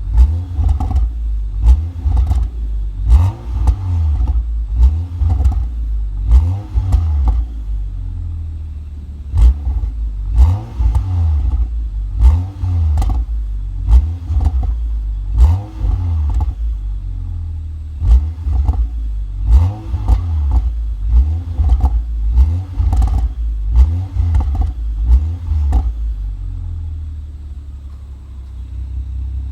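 BMW 335i's turbocharged inline-six with an M Performance exhaust, blipped repeatedly, rising and falling in pitch about every second or two. The exhaust crackles and pops sharply each time the revs drop. It settles to a steadier idle near the end.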